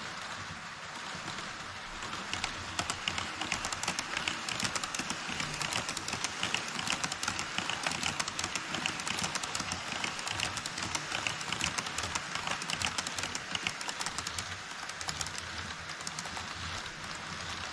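HO scale model trains rolling across a model truss bridge: a steady rolling hiss with rapid, dense clicking of the metal wheels over the rail joints, louder from about two seconds in. An E5 Shinkansen model passes first, then EF65 and EF210 electric locomotive models.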